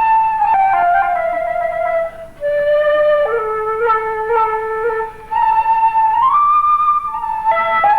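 A solo flute-like woodwind playing a slow melody of held notes, with a few notes slurred into one another by sliding up or down.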